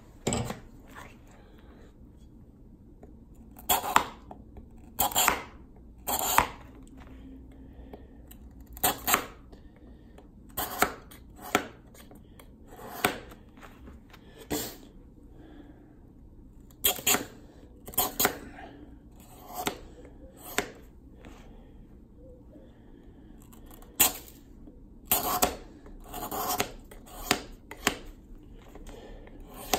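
A knife blade shaving a block of clear ice by hand: a run of short, sharp scraping strokes, one every second or so, each cutting away ice shavings.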